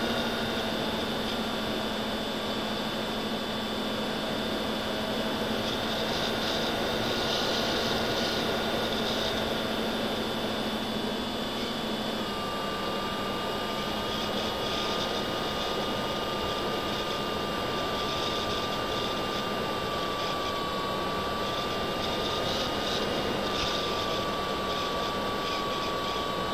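Electric motor and propeller of an FPV model aircraft, heard from its onboard camera: a steady whine over wind rush, which shifts to a lower pitch about halfway through.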